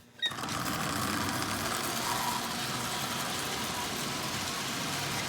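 Marx 898 tinplate toy locomotive running on its track, driven by a newly fitted Marx 490 double-reduction electric motor: a steady mechanical running noise of motor, gears and wheels. It starts suddenly about a quarter second in and then holds an even level.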